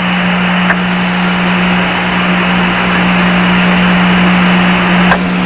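Radio-link static from a space-to-ground transmission: a steady, band-limited hiss with a constant low hum under it, and a faint click under a second in and another near the end.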